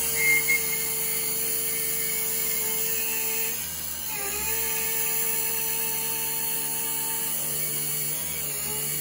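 Taig CNC mill's spindle and 3/16-inch end mill cutting aluminium at full depth: a steady high whine with two short louder spikes just after the start. The pitch dips briefly about four seconds in and again near the end as the spindle motor slows slightly under load and recovers without bogging down.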